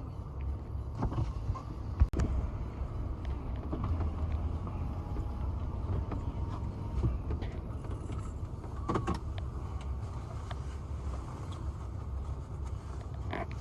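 Car engine running, heard from inside the cabin as a steady low rumble, with one sharp click about two seconds in and a few lighter knocks around nine seconds.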